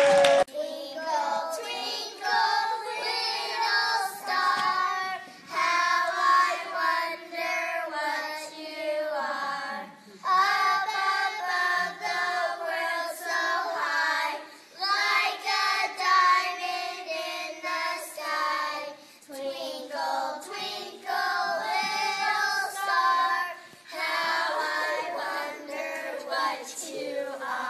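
A group of children singing a song together, in phrases with short breaks between them.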